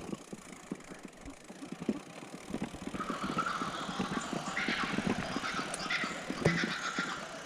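Loaded fat bike rolling over a rough bush track: irregular clicks, knocks and crunches from the tyres and the bike. A rushing hiss joins in from about three seconds in.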